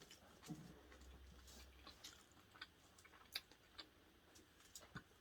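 Faint chewing and mouth sounds of people eating, with scattered small clicks.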